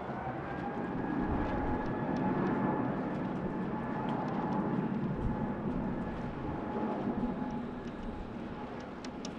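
Airbus A320neo jet engines running as the airliner rolls along the runway: a broad rumble under a steady fan whine that rises slightly in pitch at first, then holds, loudest a few seconds in.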